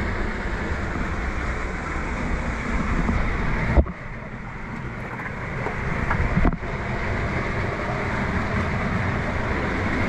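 Steady rush of waterfall water, with a thump about four seconds in and the sound dropping away sharply twice, near four and six and a half seconds.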